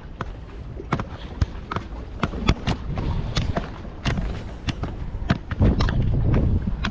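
Footsteps and gear knocking on limestone breakwater boulders as someone clambers down over them: irregular sharp clicks and knocks, with a low rumble swelling a little before the end.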